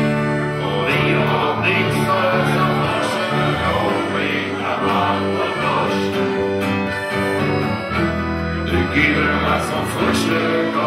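Live band with accordion and acoustic guitar playing a song, with singing.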